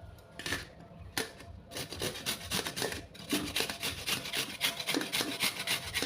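Raw beetroot being grated on a hand grater: rasping scraping strokes, a few spaced ones at first, then a fast steady run of them from about two seconds in.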